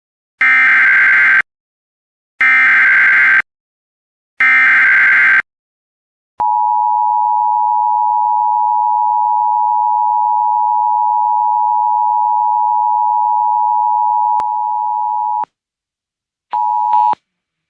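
Emergency Alert System SAME header: three bursts of warbling digital data tones, about a second each, which encode the flash flood warning. Then comes the EAS two-tone attention signal, a steady tone held about nine seconds that dips slightly in level just before it stops, and a brief half-second blip of the same tone near the end.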